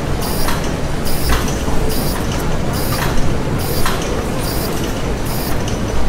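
Industrial machinery ambience: a steady low rumble with a regular hissing clank a little more often than once a second, like a working mill engine.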